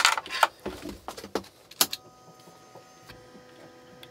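Clicks and knocks of a metal 5-pin aviation plug being pushed into its panel socket and handled, as a proximity-sensor cable is plugged into a CNC controller enclosure. After about two seconds the clicking stops and a faint steady electrical whine of several high tones remains.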